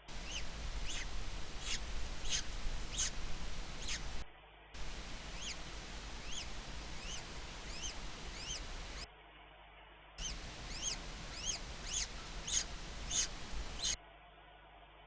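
A bird calling with short, high chirps that rise and fall, about two a second, in runs over a low steady rumble. The sound cuts out briefly three times.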